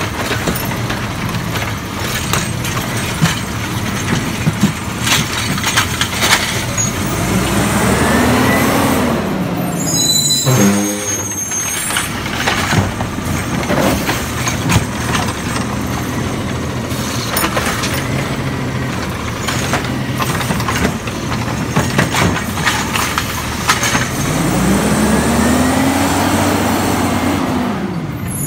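Republic Services automated side-loader garbage truck working a route: its diesel engine runs, and the pitch rises and falls twice as the hydraulic arm lifts and tips carts into the hopper. The arm and carts make repeated clanks and knocks.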